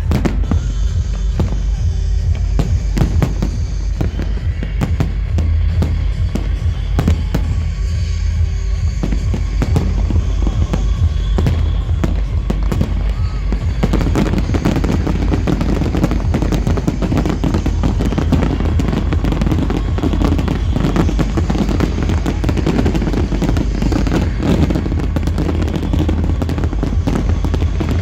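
Fireworks going off with many sharp bangs and crackles over loud music with a heavy, constant bass. From about halfway the bursts thicken into dense, continuous crackling.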